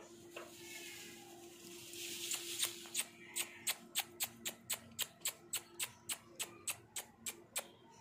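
Indian ringneck parakeet making a rapid, even series of sharp clicks, about three or four a second, after a brief hiss.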